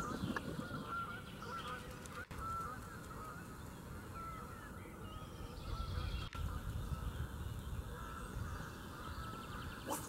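Waterfowl giving short honking calls, repeated again and again, over a low rumble that swells in the middle.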